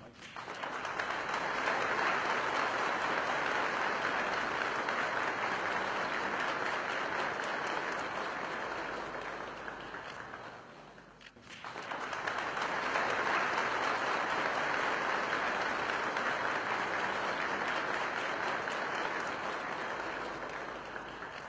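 A crowd applauding steadily in two long rounds. The clapping fades out and stops briefly about halfway through, then rises again.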